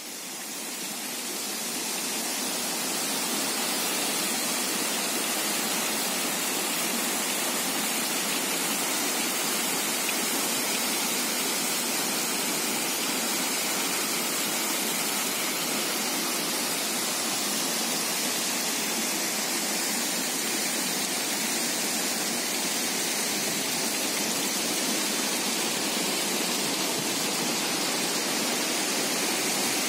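Steady rushing of a tall waterfall cascading down a rock face, fading in over the first few seconds and then holding even.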